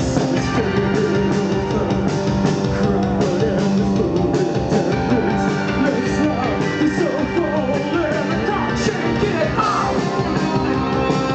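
Post-punk band playing live, guitars, bass and drums with a singer's voice over them, loud and unbroken.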